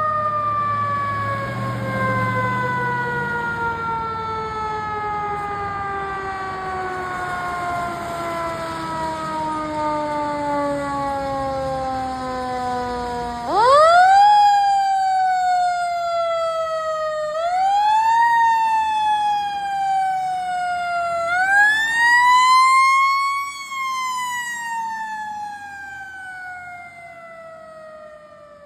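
Fire engine's mechanical siren winding down in one long, slow falling wail, then spun up three times in quick rising whoops that each slide back down. A final long wind-down fades out.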